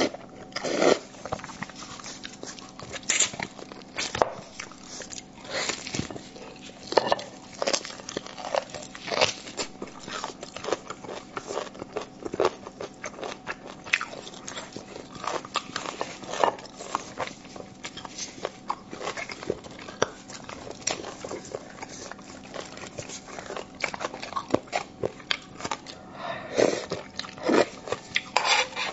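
Close-miked eating of braised beef bone marrow: wet slurping and chewing with many irregular smacking mouth clicks.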